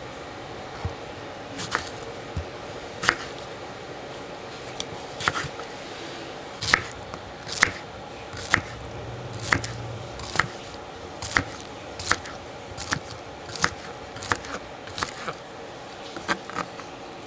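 A series of sharp knocks or taps, about one a second at uneven spacing, over a steady low hum.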